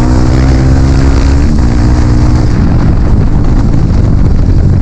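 Dirt bike engine running loud and close under the rider. Its steady tone turns rough and noisy about halfway through.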